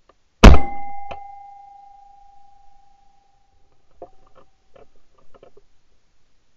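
Two shotgun shots in quick succession, the first very loud and the second fainter about 0.7 s later, leaving a ringing tone that fades over about three seconds. A run of light clicks and knocks follows a few seconds in.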